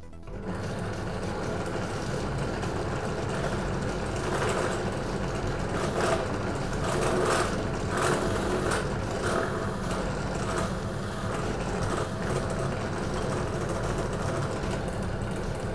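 Bench drill press running, its twist bit cutting a starter hole into a black plastic enclosure. The motor hums steadily, and the cutting gets louder and rougher about four to ten seconds in.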